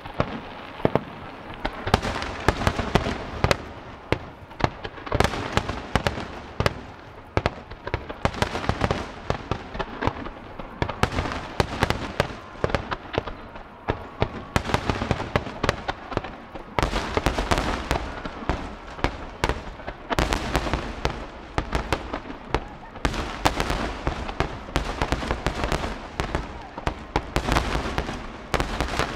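Large aerial fireworks barrage: a dense, unbroken run of overlapping shell bursts and crackling, several reports a second, with deeper booms thickening in the second half.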